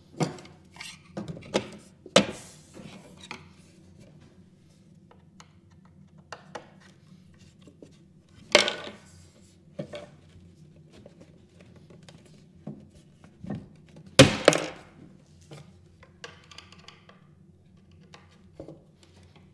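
Knocks and clunks of wooden cabinet parts being handled and fitted as a kick plate is installed on a ready-to-assemble cabinet box: a quick cluster of knocks in the first few seconds, then scattered single knocks, the loudest about 14 seconds in.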